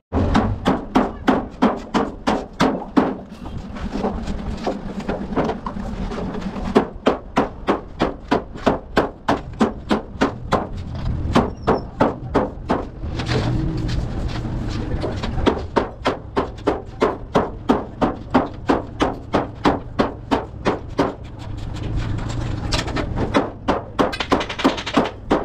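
Hand hammer striking thin steel sheet laid over a steel bar, forming the shell of a water tank. The blows come in quick runs of about three or four a second, with a few short pauses.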